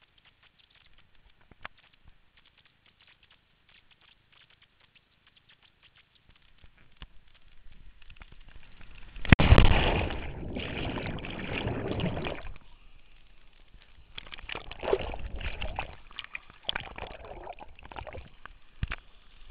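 A rush of air builds for a few seconds, then a loud splash about nine and a half seconds in as a cliff jumper hits the waterfall's plunge pool from about 70 feet. Muffled churning of water follows for about three seconds, then more splashing from about fourteen seconds on as the jumper surfaces and swims.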